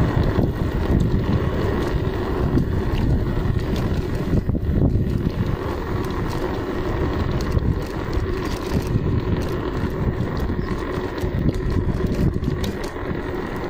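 Steady rumble of wind and road noise on the microphone of a camera travelling along a brick-paved street, with a faint steady hum and scattered small knocks.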